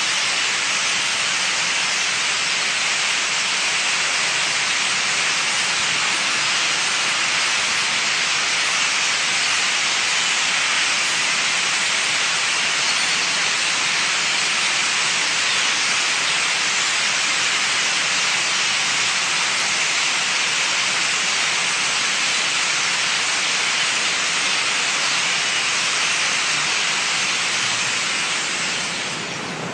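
A steady, even hiss with no rhythm or pitch, strongest in the high range, dropping slightly in level near the end.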